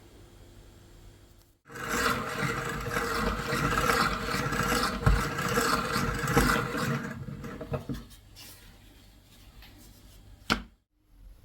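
Pasta machine rolling semolina dough, a rough rasping, rubbing sound that starts abruptly after a second or two and runs for about six seconds before fading. A single sharp click near the end.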